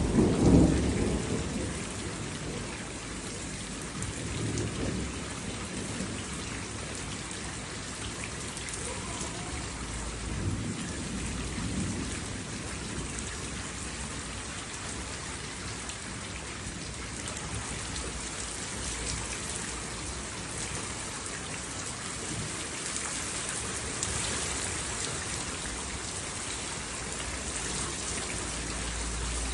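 Steady rain falling, with rolls of thunder: a loud low rumble right at the start, then fainter rumbles about four seconds and about eleven seconds in.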